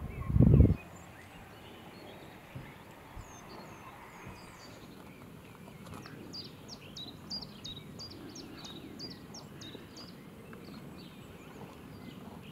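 Small birds chirping over faint, steady background noise, with a quick run of high chirps about halfway through. A few heavy, low thumps open it in the first second.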